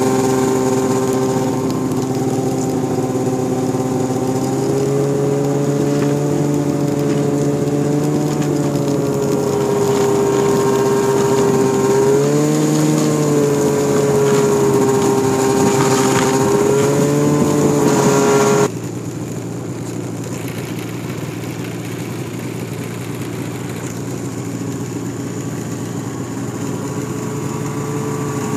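Snowmobile engine running steadily while riding, its pitch wavering slightly with the throttle. About two-thirds of the way in the sound drops suddenly to a quieter engine sound, which grows louder near the end as a snowmobile comes toward the microphone.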